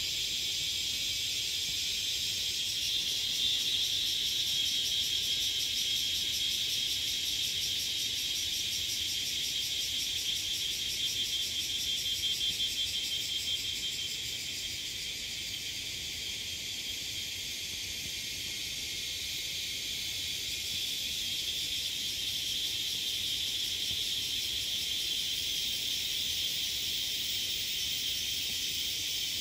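Dense chorus of insects in tropical forest: a steady high-pitched buzz with a fast pulsing texture, swelling slightly a few seconds in and easing off somewhat about halfway through.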